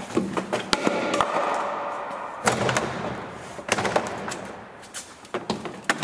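Plastic retaining clips of a car door trim panel popping loose as the panel is pulled off the door. Several sharp snaps come irregularly, with plastic rustling and scraping between them.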